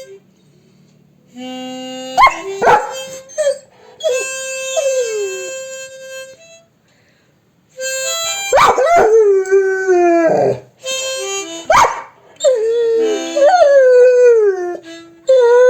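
Labrador dog howling along to harmonica music: several long, wavering howls that slide down in pitch, coming mostly in the second half, over held harmonica notes.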